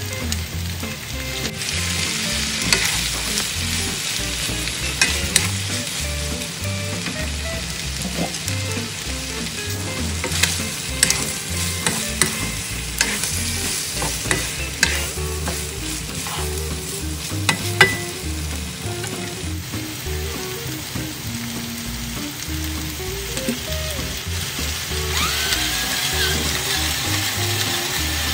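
Beef tripe and liver sizzling as they stir-fry in a nonstick wok, the hiss growing stronger about a second in as vinegar is poured into the hot pan. A wooden spatula knocks and scrapes against the pan every few seconds as the meat is stirred.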